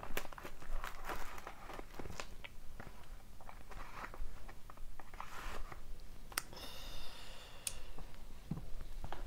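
Cardboard trading-card box being opened by hand: rustling, scraping and tearing of its wrapper and seal, with scattered light clicks of the cardboard. One brief squeak about seven seconds in.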